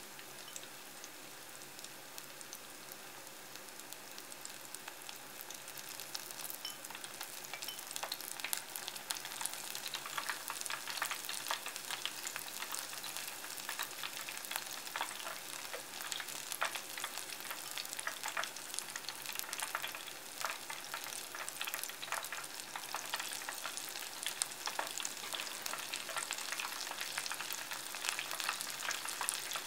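Battered maitake mushroom tempura deep-frying in vegetable oil: a soft steady sizzle that grows louder into dense crackling and popping from about six seconds in, as more battered pieces fill the oil.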